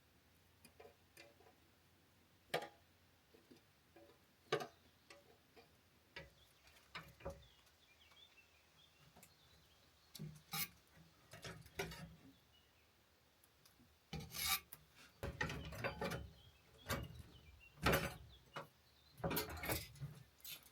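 Scattered light clicks and knocks of something being handled, then a denser run of scraping and rubbing strokes in the last third.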